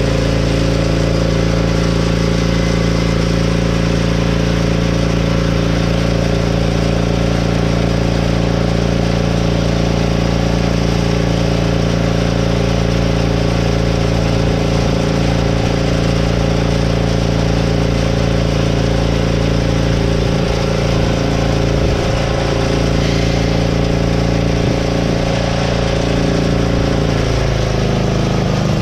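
Allis-Chalmers B-10 garden tractor engine running steadily at a constant speed, its note shifting just before the end.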